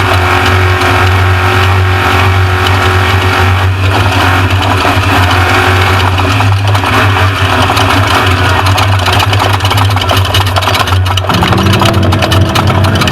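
Off-road race truck driving at speed: loud, steady engine and road noise with a heavy low rumble, the engine sound shifting about eleven seconds in.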